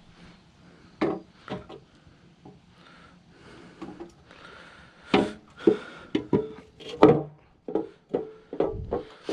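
Irregular knocks and clanks of metal parts and tools on the bottom end of a Jeep 4.0 engine block as a stuck part is worked loose among broken-piston fragments. The clanks come thick and fast in the second half.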